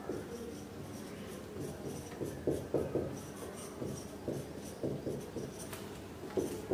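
Marker pen writing on a whiteboard, a run of short, quick strokes.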